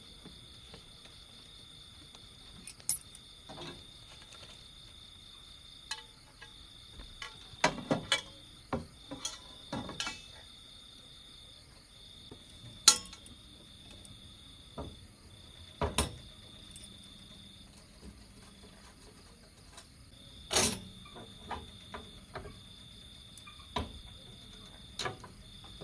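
Crickets trilling steadily in the night: a high-pitched trill broken into phrases a second or two long, over a fainter, higher hiss of insects. Sharp knocks and clanks from someone handling things on the platform break in now and then, the loudest about halfway through.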